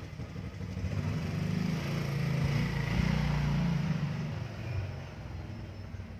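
A motor vehicle passing by: a low engine sound that grows louder, peaks about halfway through and fades away.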